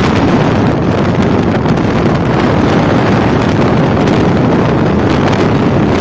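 Strong cyclone wind blowing hard across the microphone: loud, steady, low wind noise with no letup.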